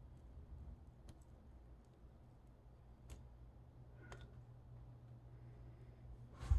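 Faint clicks and taps of hands handling a plastic speed cube and sticker sheet, a few spaced seconds apart over a low steady hum, with a louder knock near the end.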